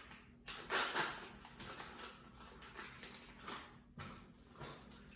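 Plastic mozzarella packaging being handled and opened: a series of short crinkling, rustling noises, the loudest about a second in.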